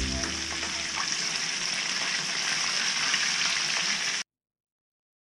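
Sturgeon meatballs frying in a skillet of hot oil, a steady sizzle that cuts off suddenly about four seconds in.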